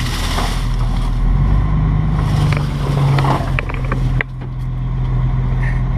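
Rear-loading garbage truck engine running steadily, its pitch raised slightly through the middle and dropping suddenly a little after four seconds. Scattered knocks and clatter in the middle come from a trash can and tree branches being tipped into the hopper.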